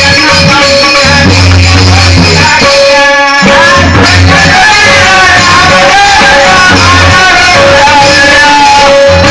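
A song: a singer's voice over instrumental accompaniment with a steady bass line, loud throughout. The bass drops out briefly about three seconds in.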